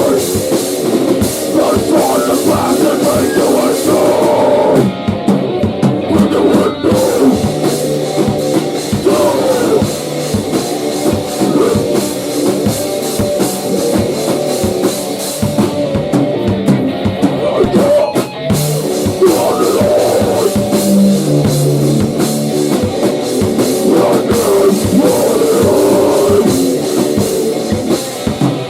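Grunge rock band playing loud: a drum kit and electric guitar.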